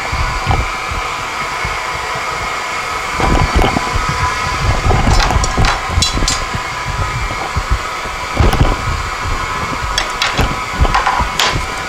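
Light clinks and knocks of neon glass tubing being handled on a workbench, a cluster about five seconds in and more around ten to eleven seconds in. Under them is a steady rushing noise with a low rumble.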